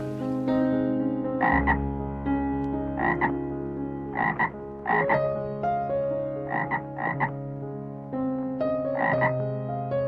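A frog croaking: about seven short croaks at uneven intervals, over soft background music.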